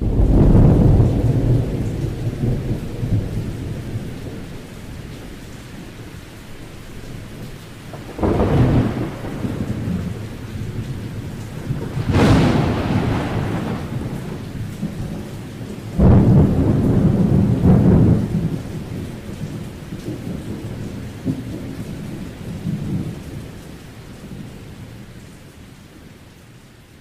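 Thunderstorm: steady rain with four rolls of thunder, one at the start, one about 8 seconds in, a sharper crack about 12 seconds in and a sudden loud clap about 16 seconds in, then the storm fades out.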